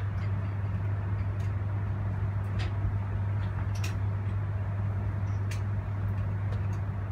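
Steady low hum of a passenger train heard from inside the carriage, with a few faint clicks.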